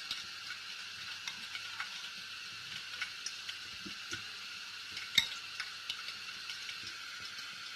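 Light taps and clicks of a stuffed chili being dipped and turned in a bowl of beaten egg, with one sharper click about five seconds in, over a steady hiss.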